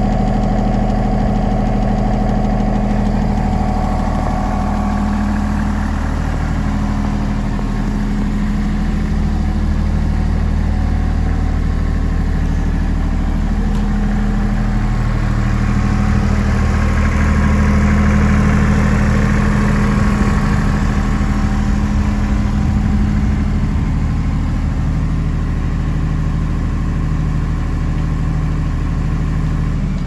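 Perkins diesel engine of a Mosa GE 35 PSX super-silenced generator set running steadily at a constant speed.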